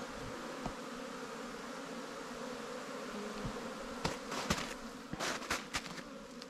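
Honeybees flying around their hive entrances, a steady buzzing hum. From about four seconds in it is joined by irregular crunching footsteps on snow.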